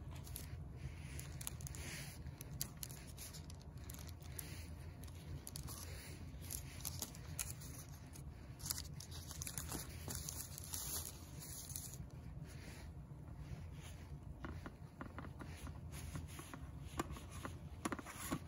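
Light scrapes and small taps of a knife cutting air vents into a pie's raw top pastry crust in a pie plate, scattered and irregular, over a steady low rumble.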